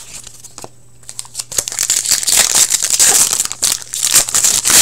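Hockey card pack wrapper crinkling as it is handled and opened: a few light clicks at first, then dense crackling from about a second and a half in, loudest near the end.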